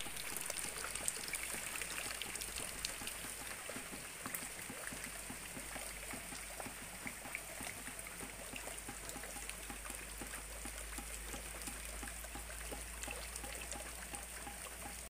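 Steady rain falling on oil palm fronds and wet ground, heard as an even wash of water with many small drop ticks.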